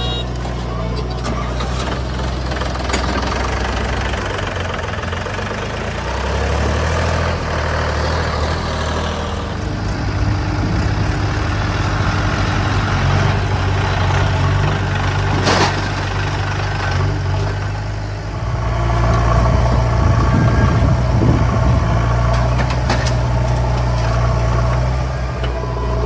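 Diesel engines of a JCB 3DX backhoe loader and a tractor running steadily while the backhoe loads crushed stone into a tractor trolley. The engine sound gets louder about 18 seconds in, and there is one sharp knock about 15 seconds in.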